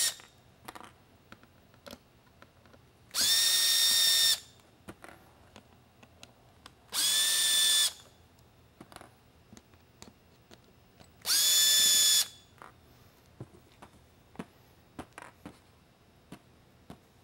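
Cordless drill/driver backing out small Phillips head screws in three short runs of about a second each. The motor's whine rises briefly as each run starts, then holds steady. Light clicks of handling come between the runs.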